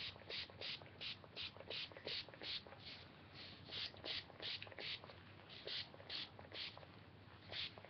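Perfume-style spray bottle filled with water, pumped over and over onto hair to dampen it: a fast, even run of short, faint hisses, about three a second, with a short pause near the end.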